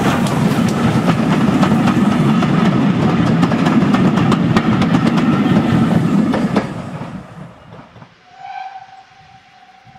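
Pullman coaches running past close by, wheels clicking steadily over the rail joints. This stops abruptly after about six and a half seconds. About eight seconds in, GWR 4-4-0 No. 9017 'Earl of Berkeley' sounds a long, steady steam whistle in the distance.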